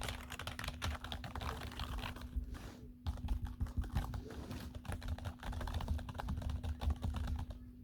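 Rapid typing on a low-profile Logitech membrane keyboard, a dense run of soft key clicks with a brief pause about three seconds in, stopping just before the end.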